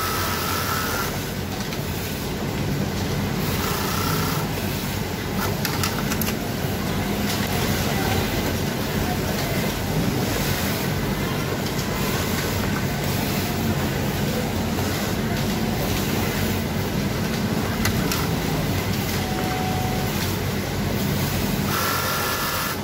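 Steady din of a garment factory sewing floor: many industrial sewing machines running together in a continuous hum and rattle.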